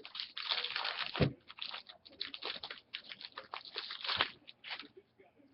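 Trading card pack wrapper being torn and crinkled by hand: a rapid run of crackling rustles, heaviest in the first second, with a couple of dull knocks, stopping shortly before the end.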